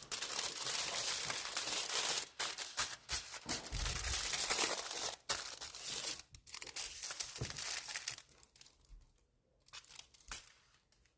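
Crinkling and rustling of wrapping or packaging being handled, dense for about the first six seconds, then sparser and quieter.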